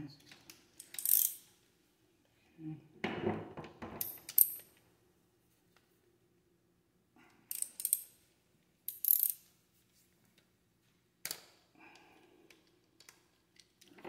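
Short, separate bursts of clicking and clinking from hand tools and metal brake parts being handled, several times with quiet gaps between.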